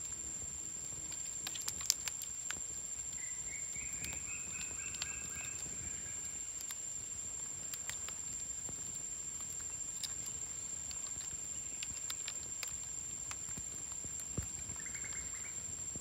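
Parakeets giving a quick run of short repeated chirps a few seconds in, and another brief call near the end, with scattered sharp taps and clicks from beaks and feet on dry branches. A steady high-pitched whine sits under it all.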